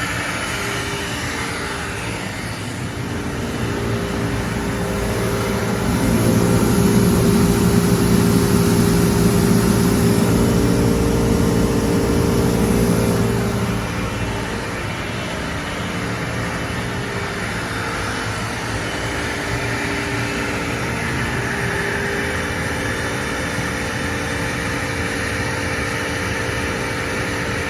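Homemade CNC machine running a cut at a sped-up feed rate: a steady machine whine with several held tones. It gets louder for several seconds about a third of the way in, then settles back to its earlier level.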